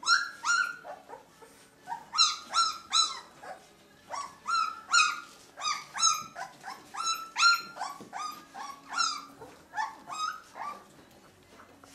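Two-week-old Leonberger puppies squealing: short, high-pitched cries that each rise then fall in pitch, several a second, in runs with short pauses between, thinning out near the end.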